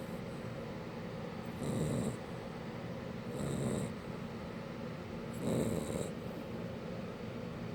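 Shar-Pei puppy snoring in its sleep: three snores roughly two seconds apart, each about half a second long, over a steady low background hum.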